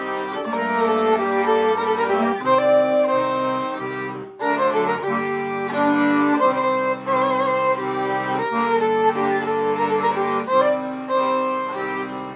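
Violin and button accordion playing a klezmer tish nign together: the fiddle carries the melody over the accordion's sustained bass and chords, with a brief break about four seconds in.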